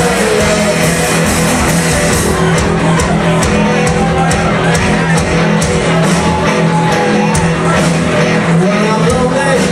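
Live covers band playing a loud rock number, with a steady drum beat running under the guitars.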